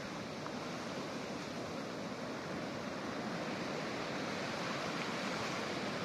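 Ocean surf washing in, a steady rushing wash that grows slightly louder in the second half.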